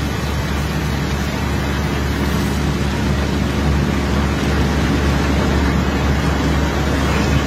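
Engine of heavy unloading machinery running steadily, a low hum under a constant rushing noise.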